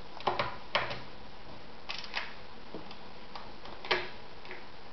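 Irregular clicks and knocks from handling a Veritas sewing machine: its stitch selector dial and lever being set and the work positioned under the presser foot, with the machine not running. The clicks come singly at uneven gaps, the loudest just after the start and about four seconds in.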